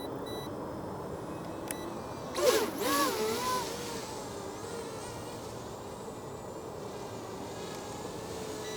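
Electric propeller motors of an XK X450 VTOL RC plane buzzing in flight, their pitch wavering up and down as it manoeuvres, loudest in a brief rush about two and a half seconds in. A few short high beeps from the radio transmitter sound near the start.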